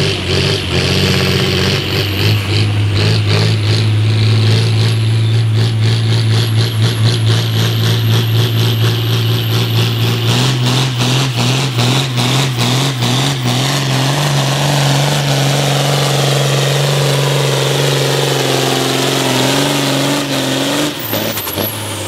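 John Deere 4440's six-cylinder diesel pulling a weight-transfer sled at full throttle under heavy load, with a high whistle over the engine note. The engine note steps up about halfway through, then drops off with a falling whistle about a second before the end as the pull finishes.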